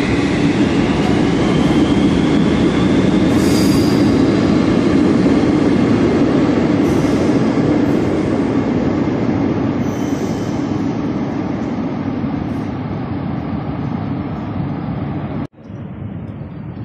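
Algiers Metro train pulling out of the station: a loud steady rumble of wheels on rail, with a thin electric motor whine rising in pitch over the first second as it accelerates. The rumble slowly fades, then drops abruptly about a second before the end to a quieter steady hum.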